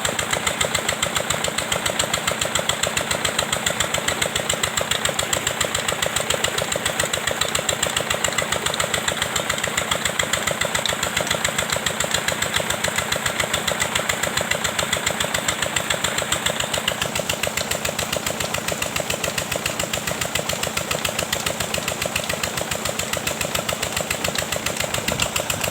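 Petter diesel engine running steadily to drive a tubewell pump, a fast, even beat of its firing strokes.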